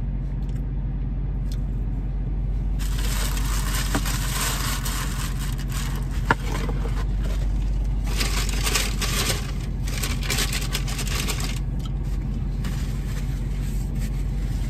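Paper rustling and crinkling from about 3 to 11 seconds in, with one sharp click near the middle, as a paper napkin is pulled out and used. Under it is the steady low rumble of the parked car running.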